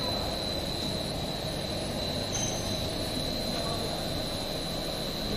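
PVC edge band extrusion line running: a steady machine hum and rush from its motors, rollers and gearboxes, with a constant high-pitched whine on top.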